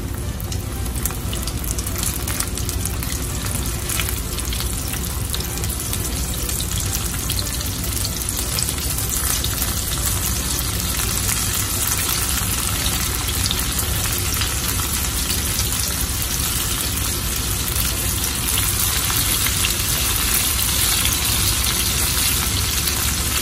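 Breaded chicken breast pieces deep-frying in hot oil as more are lowered in: a steady sizzle with scattered sharp crackles, growing a little louder toward the end.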